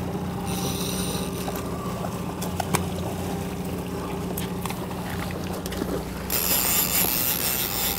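Boat's outboard motor running steadily at trolling speed. A brief high rasp comes about half a second in, and a louder hiss starts about six seconds in.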